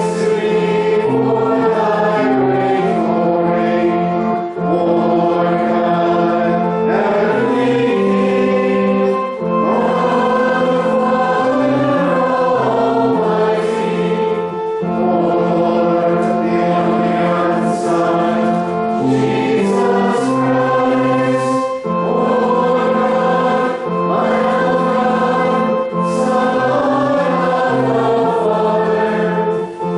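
Congregation singing a liturgical hymn together in phrases, over steady held chords of instrumental accompaniment.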